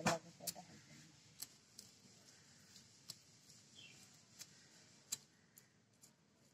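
Fish scales being scraped off against the blade of a bonti, the curved floor-mounted cutting blade. It makes a series of sharp, irregular scraping ticks, about one or two a second, the loudest just at the start.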